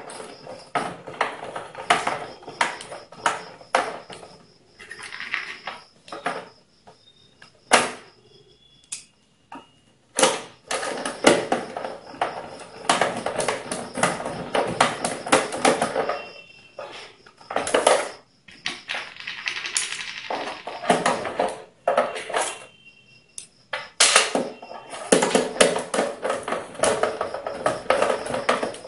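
Screws being driven into a plastic UPS case with a small screwdriver: runs of rapid clicking and scraping, broken by short pauses.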